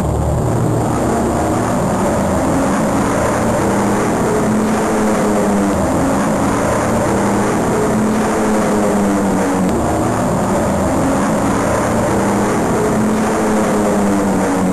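Steady drone of a propeller aircraft engine running at an even speed, a pitched hum that wavers slightly without rising or falling.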